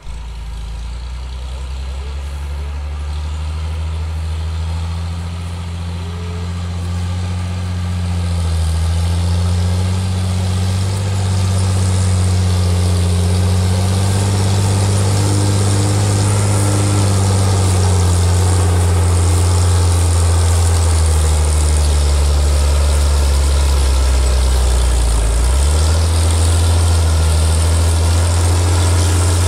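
Diesel engine of a forestry tractor working steadily as it drives uphill dragging a load of logs, growing louder as it approaches. The engine note dips briefly twice, about a third of the way in and near the end.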